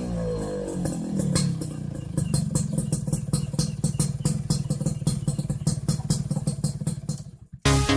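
Yamaha RS100 two-stroke single's engine running through a banana-type expansion chamber and 11-inch arrester silencer: the revs fall back in the first second or so, then it idles with a quick, uneven exhaust beat. Near the end the engine sound cuts off and electronic dance music starts.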